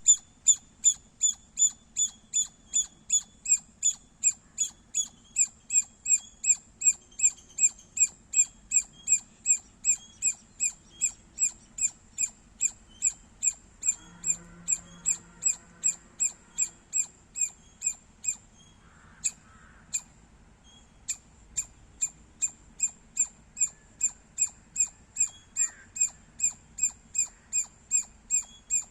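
Squirrel chirping: a long run of short, sharp, high-pitched chirps repeated evenly at about two to three a second, with a break of a couple of seconds about two-thirds of the way through before the chirping resumes.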